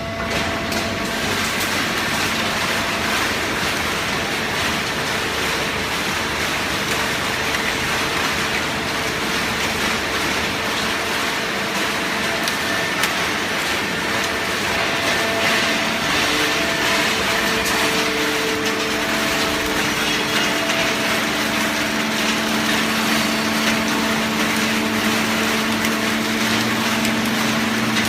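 Fully automatic horizontal hydraulic baler running on waste newspaper: a steady mechanical din with a low hum, which grows stronger in the last third.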